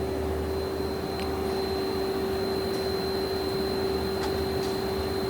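Hardinge GS-51 CNC turning center running with a steady hum and a single steady tone, with a few faint clicks.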